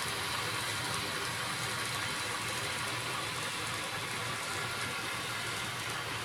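KATO Sound Box playing a KiHa 58 diesel railcar's engine running sound through its speaker, a steady hissy drone with no horn or changes.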